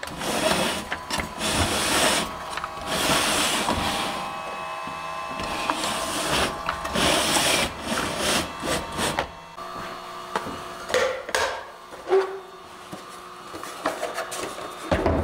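Hands rubbing, knocking and shifting against the 3D-printed plastic body and tracks of an RC tracked truck. About two-thirds in the handling fades, leaving a steady, quieter hum from the truck's electronics cooling fans.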